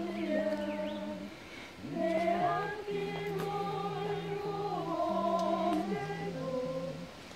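A small group singing a Korean Christian hymn together, unaccompanied, in slow, held notes, with a short break about two seconds in.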